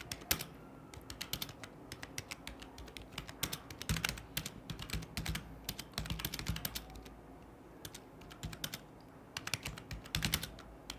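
Computer keyboard being typed on fast and steadily, a rapid irregular clatter of key presses, with a brief pause past the middle.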